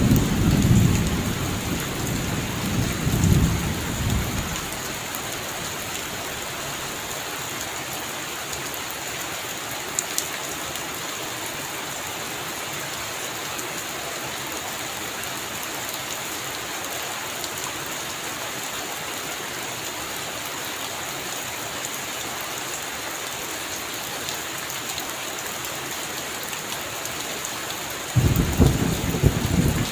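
Heavy rain falling steadily, with rolls of thunder rumbling in the first few seconds and again near the end.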